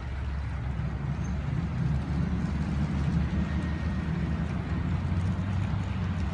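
Fire engine's diesel engine running as the truck pulls away and turns: a low rumble that grows louder about a second in.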